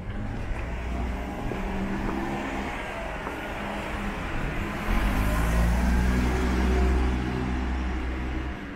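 A car passing close by with its engine running; a deep rumble and tyre hiss swell from about five seconds in and fall away near the end.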